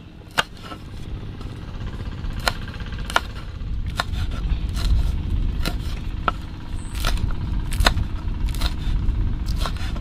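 Light clicks and knocks at uneven intervals as chilies and other sambal ingredients are handled and put together, over a steady low rumble that grows louder about four seconds in.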